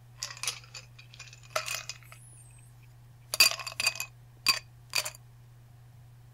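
Light rattling at first, then four sharp ringing clinks of hard objects such as glass or metal knocking together, between about three and five seconds in.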